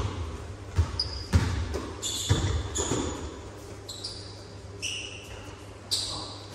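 Basketball thudding on a sports-hall floor several times in the first few seconds, with short high sneaker squeaks from players moving on the court, echoing in the large gym.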